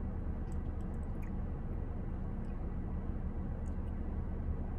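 Steady low hum inside a parked car's cabin, with a few faint clicks.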